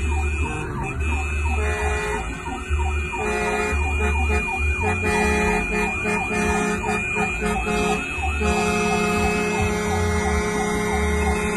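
Emergency vehicle siren sounding in traffic, a quickly repeating rising-and-falling yelp over held tones.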